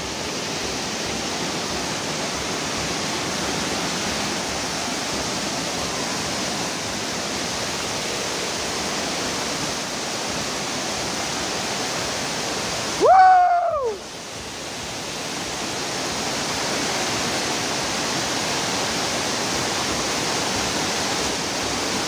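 Waterfall: a steady rush of falling water. About two-thirds of the way through it drops out briefly under a short vocal call that rises and then falls in pitch, then fades back in.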